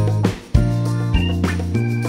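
Instrumental background music with a steady beat and held bass notes.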